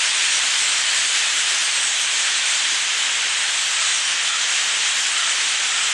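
The massed din of a huge flock of thousands of blackbirds, their many calls blending into one steady hiss with no single call standing out.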